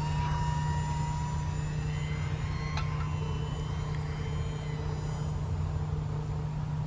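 Electric motor and propeller of a foam-board RC model plane flying overhead, a thin steady whine in several tones over a steady low rumble.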